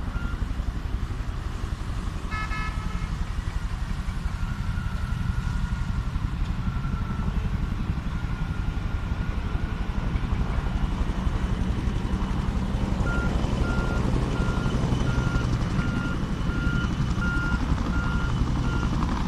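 A vehicle's reversing alarm beeping at a steady pace, its beeps less than a second apart, over a continuous low engine rumble. The beeping stops for a stretch in the middle and starts again near the end.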